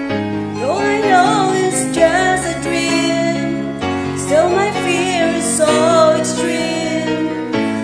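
A woman singing a ballad with vibrato over a karaoke backing track of sustained chords, the chords changing about every two seconds.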